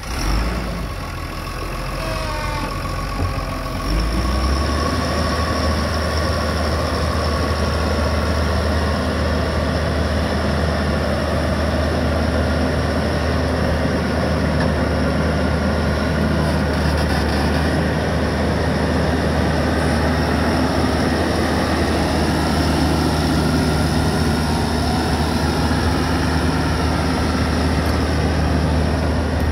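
RoGator 1254 self-propelled sprayer's diesel engine running, a steady low hum that gets louder about four seconds in and holds there.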